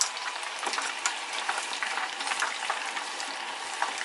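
Food deep-frying in hot oil: a steady sizzle packed with quick crackles and pops.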